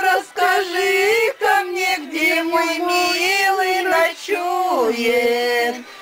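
A high voice drawn out in long, wavering wailing notes that slide down in pitch a few seconds in.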